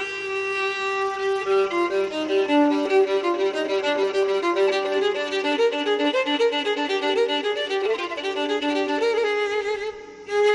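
Violin playing a melody of changing bowed notes, with a brief dip near the end.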